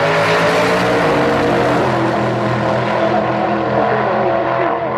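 Two drag-racing cars at full throttle accelerating down the quarter-mile: a loud, steady engine drone with several pitches at once, its high end thinning over the last couple of seconds as the cars pull away.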